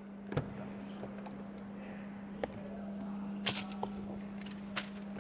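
Quiet room tone: a steady low hum with a few light clicks and knocks scattered through it.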